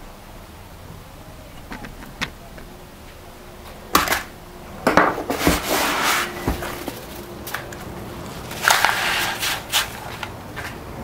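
Gritty crushed-pumice and Portland cement concrete mix being scraped and pushed into a mould, in two rough stretches about four and eight and a half seconds in, with a few light clicks before them.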